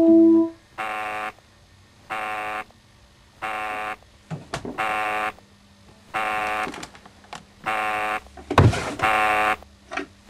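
A held electronic keyboard organ chord cuts off at the start, then an alarm buzzer sounds in half-second pulses about every 1.3 seconds. There are a few knocks and a single low thud about three-quarters of the way through.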